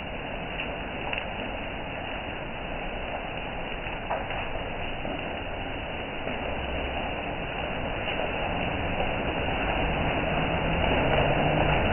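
Hailstorm with rain: dense, steady patter of hailstones and rain hitting the paved lane, getting louder over the last few seconds.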